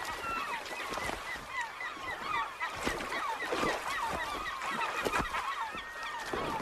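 A flock of gulls calling over and over, a dense chatter of short rising-and-falling cries, with several splashes and wing flaps as an osprey plunges into the water among them and lifts off with a fish.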